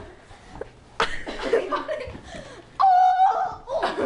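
Person laughing, broken by a loud, held high-pitched vocal note about three seconds in.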